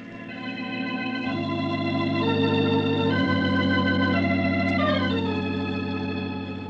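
Organ playing a short musical bridge of sustained chords that swell up, change a few times, then fade, marking the scene change from night to morning.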